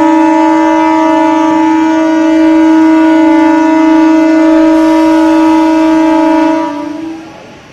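Electric MEMU train's horn held in one long, steady, loud note for about seven seconds, then cut off.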